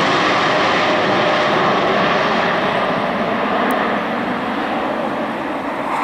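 Boeing 747-8 freighter's four GEnx turbofans at takeoff power as the jet climbs away, a loud, steady jet engine noise that slowly dulls and eases a little as the aircraft recedes.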